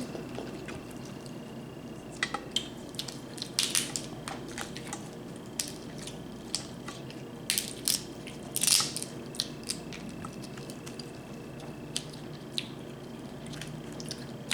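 Crab leg shells cracking and crunching in scattered bursts, with small clicks of handling food and dishes; the longest, loudest crackle comes a little past the middle.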